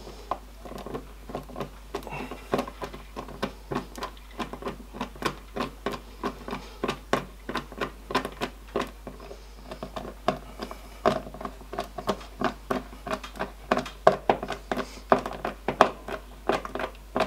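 Screws being driven by hand through the cover plate of a pond flange tank connector: a run of short clicks and scrapes, about two to four a second, as the screwdriver turns.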